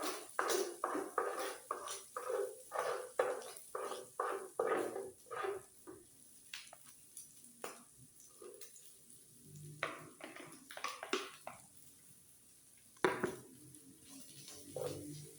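Metal utensils scraping and clinking against a flat cooking griddle. A quick run of strokes, about three a second, gives way after about six seconds to a few scattered knocks, with one sharp knock near the end.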